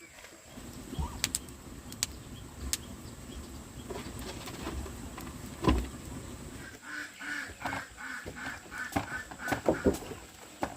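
A bird calling in a quick run of short repeated notes, about three a second, in the second half, among scattered knocks and clicks.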